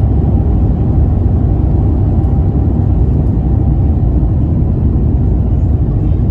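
Airbus A350-900's Rolls-Royce Trent XWB engines at takeoff thrust, heard inside the cabin as a loud, steady low rumble mixed with airflow, with a faint steady whine above it, during the climb just after liftoff.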